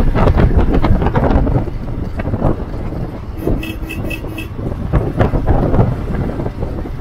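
Motorcycle running at low speed on a rough village road, its engine rumble mixed with wind buffeting the microphone. About halfway through, a quick string of about five short beeps.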